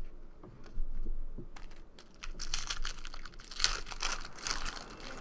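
A few light clicks, then crinkling and tearing of a foil trading-card pack wrapper for about the last three seconds, as a pack of baseball cards is opened and handled.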